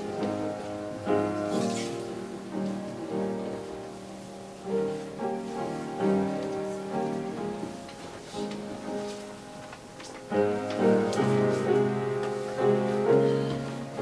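Piano playing a slow, hymn-like prelude in held chords, with a new chord struck about every second and the playing growing louder about ten seconds in.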